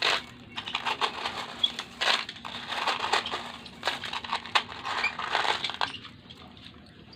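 Hands rummaging through small coloured gravel in a toy truck, the stones rattling and crunching in irregular bursts that die down near the end.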